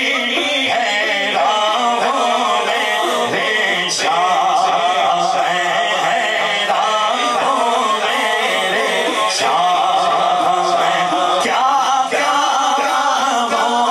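Two men singing an Urdu naat, a devotional poem in praise of the Prophet, in a drawn-out chanting style. The lead voice carries the melody and the second voice joins him.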